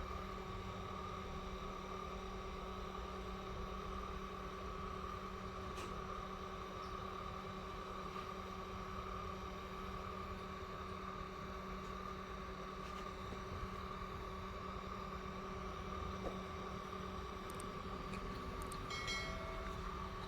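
Steady hum and whine of a small electric blower running at constant speed, with a few faint ticks near the end.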